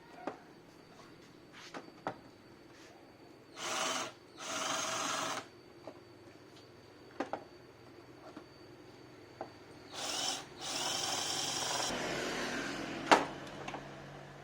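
Small power drill running in short bursts with a whine: two runs of about half a second and a second, later a brief run and a longer one of about two seconds. Light clicks and knocks of handling come between the runs, and there is one sharp click near the end.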